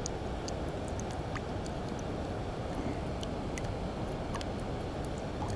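Steady outdoor rushing noise with faint, scattered high-pitched ticks.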